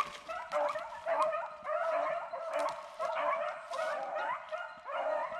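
Pack of rabbit-hunting dogs barking and yipping over one another in quick, repeated calls, the sound of the dogs on a rabbit's trail.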